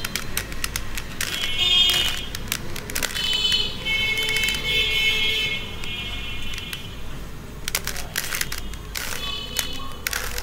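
Plastic 3x3 Rubik's cube being turned, its layers clicking in quick irregular runs. Several high-pitched whining tones, each lasting a second or two, sound over the clicks.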